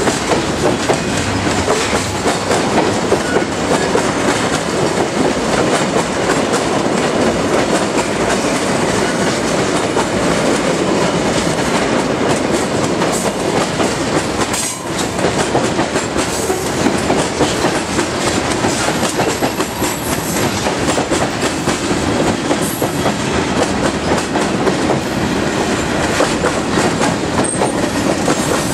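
Freight train of covered hoppers and tank cars rolling steadily past: steel wheels on rail making a continuous loud din with a constant stream of clicks as the wheels cross rail joints, dipping briefly about halfway through.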